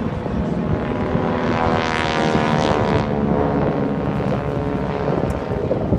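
Several piston-engined propeller aerobatic planes flying overhead in formation. Their engines make a steady, layered drone that swells with a rushing noise about two seconds in, then eases.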